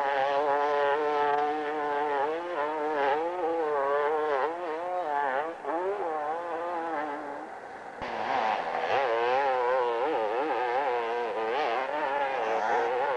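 Dirt bike engines revving as they climb a steep hill, the pitch rising and falling over and over as the throttle is worked. The sound drops away about seven seconds in, and a second bike's engine takes over about a second later.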